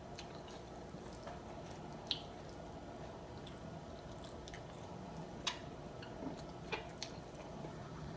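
A person eating grilled chicken and rice by hand: soft chewing and mouth sounds with a few sharp clicks, the loudest about two seconds in and another about five and a half seconds in.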